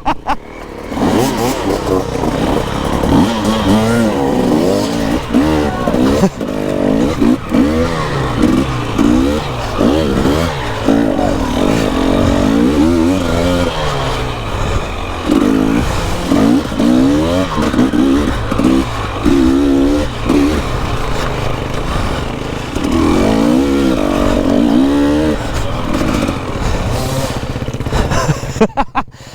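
Dirt bike engine revving hard and backing off over and over while riding a muddy enduro trail, its pitch rising and falling every second or two.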